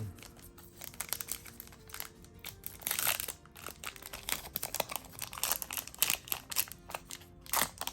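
Trading-card booster pack wrapper crinkling as it is handled and torn open, with louder rustling bursts about three seconds in and near the end. Faint background music runs underneath.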